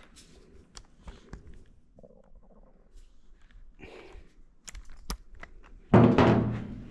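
Small metal clicks and clinks of hand tools at work on an engine, then near the end a loud, low buzzing rumble lasting under a second that fades away.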